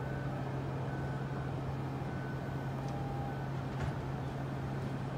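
MBTA Green Line light-rail train slowly approaching along the platform, its steady low hum running under the general noise, with a few faint short high tones.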